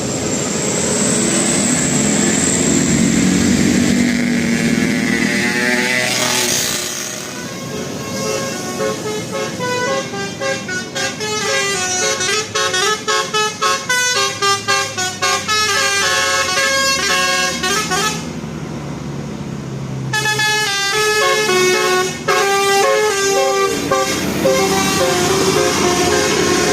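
A bus's 'telolet basuri' musical multi-tone horn plays a tune in quick stepped notes. It starts after several seconds of engine and traffic noise, breaks off for about two seconds past the middle, then plays on.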